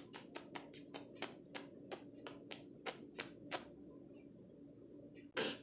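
A kitten licking a person's face close to the microphone: a quick run of about a dozen small wet clicks, three or four a second, over a faint steady low hum, then one louder brief sound near the end.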